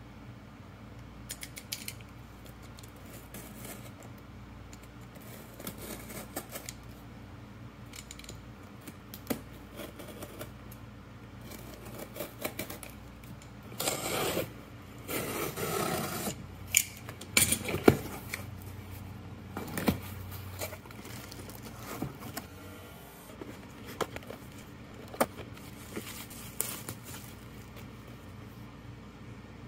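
A box cutter slits the packing tape on a cardboard shipping box, a scraping rasp about halfway through. Around it come sharp clicks and rustles as the cardboard box and the camera's inner packaging are handled and opened.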